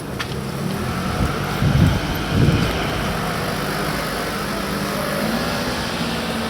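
Street traffic: car engines running close by, a steady low hum with two louder low swells about two seconds in.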